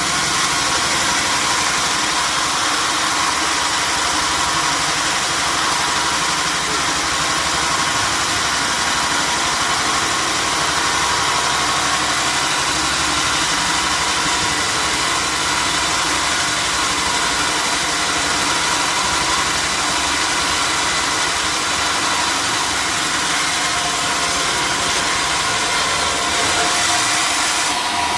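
Sawmill machinery running steadily: a constant loud mechanical hiss with a faint steady hum, shifting slightly near the end.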